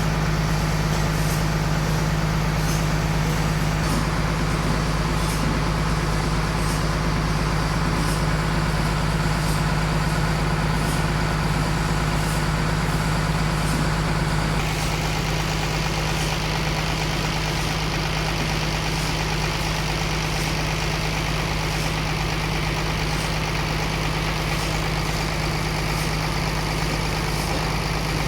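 Sawmill machinery running steadily with a constant low hum and faint regular ticking; the sound shifts slightly about halfway through.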